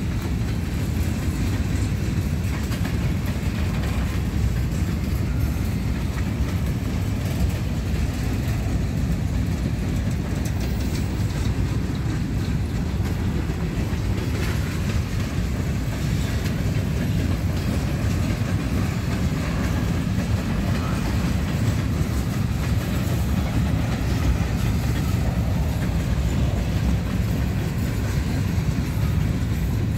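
Freight train of covered hopper cars rolling past: a steady low rumble with wheels clicking over the rails now and then.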